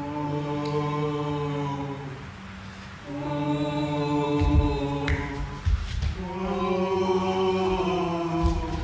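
Choral singing in long held notes, in three sustained phrases, with low thumps coming in about halfway through.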